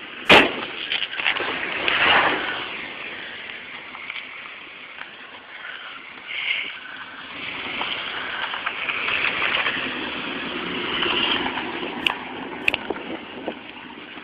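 Red pickup truck driving, its engine and tyres heard as a steady noise that swells twice as it moves about. A sharp knock comes just after the start.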